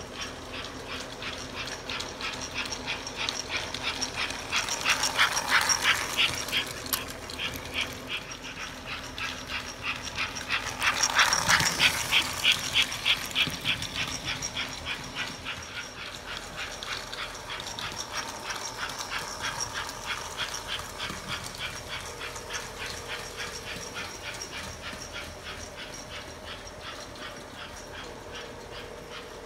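A 1950s toy electric steam train running on metal sectional track: a steady rapid clicking, about four or five a second, over a faint motor hum. It grows louder twice, about five seconds in and again around eleven seconds, as the train passes close by.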